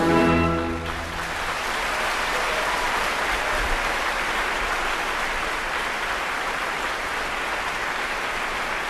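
Orchestra's closing chord, cut off about a second in, then steady theatre audience applause.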